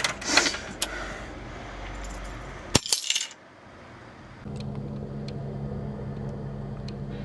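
Hands fumbling at a door handle and lock with a few clicks and rattles, then a bunch of metal keys dropped onto a hard floor with a sharp jangle about three seconds in. A low steady hum follows from about four and a half seconds in.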